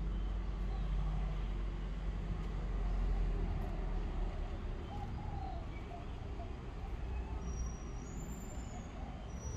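Steady low outdoor rumble, with a few faint bird calls around the middle and toward the end.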